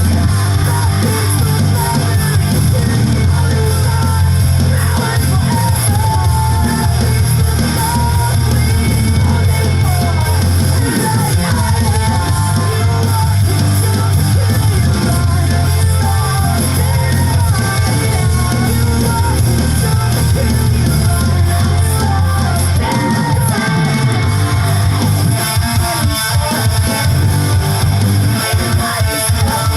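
Loud rock music with electric guitar, drums and bass, and singing.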